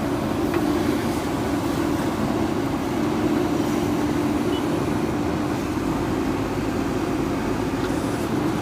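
JCB 3DX backhoe loader's diesel engine running steadily with a low, even rumble.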